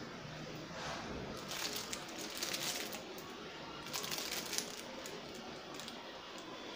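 Makeup brush bristles scratching in quick strokes, applying powder contour. There is a bout of brushing from about a second in to three seconds, and a shorter one around four seconds in.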